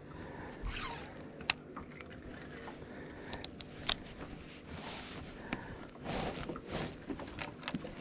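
Baitcasting reel being wound in with a fish on the line: scattered sharp clicks and scrapes, with a couple of short rustling noises about five and six seconds in.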